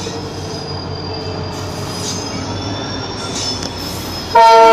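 Indian Railways diesel locomotive passing close, its wheels running on the rails with a thin high-pitched squeal. Near the end a loud locomotive horn blast starts suddenly and is the loudest sound.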